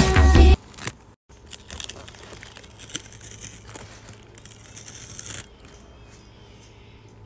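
Background music cuts off about half a second in, followed by a few seconds of crackly rustling as the cover film of a diamond painting canvas is handled and peeled against the sticky canvas.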